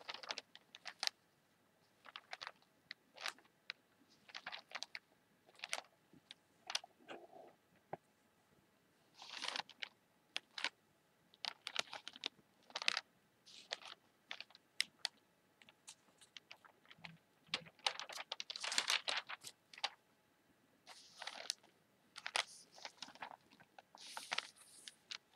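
Newspaper pages being tapped, crinkled and rustled by fingertips: a string of irregular sharp paper clicks and crackles, with a few longer rustles where the sheets are rubbed or shifted.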